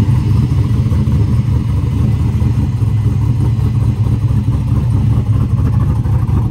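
Cammed, naturally aspirated 6.2 L LS V8 in a street race truck, running steadily and loudly with a choppy, uneven beat.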